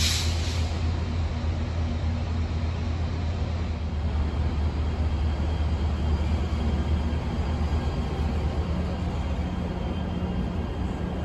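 Metro light rail train (Kinkisharyo P3010) pulling into the platform, a steady low hum with running noise. There is a short hiss right at the start, and the hum's tone drops slightly near the end as the train slows.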